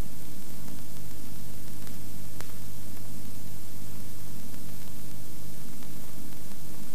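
Steady hiss with a low electrical hum, the background noise of an old recording's soundtrack, with a faint click or two.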